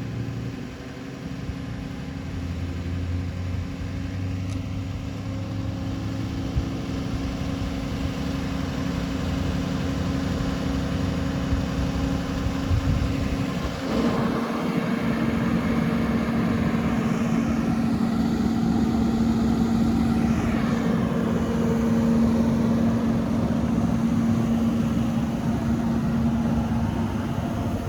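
A vehicle engine running steadily under a low rumble, its tone changing abruptly about fourteen seconds in and then holding steady.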